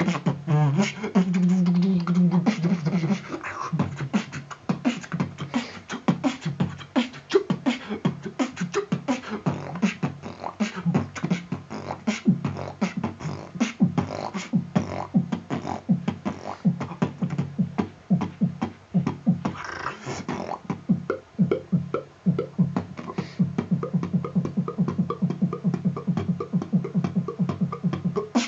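Freestyle beatboxing: a rapid stream of mouth-made kick, snare and hi-hat clicks over a low hummed bass note that holds for the first few seconds and returns through the second half, with a short hissing burst about two-thirds of the way in.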